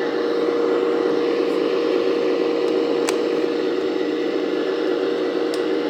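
Hydraulic oil pump of a 1/14 RC demolition excavator, driven by a brushless motor, running with a steady whine. There is a single click about three seconds in.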